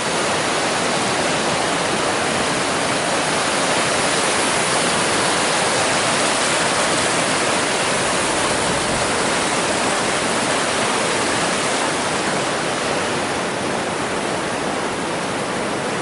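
Boundary Creek in flood: fast white water rushing steadily over and past its banks.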